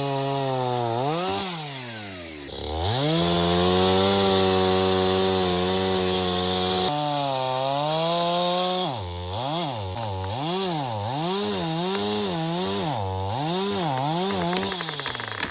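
Chainsaw engine revving up and held at high speed for several seconds, then throttled up and down in a quick string of short revs in the second half.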